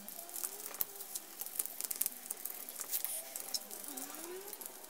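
Gloved hands and a shop towel wiping and scrubbing a motorcycle engine: scattered small clicks and rattles, with a few faint wavering squeaks from the rubbing.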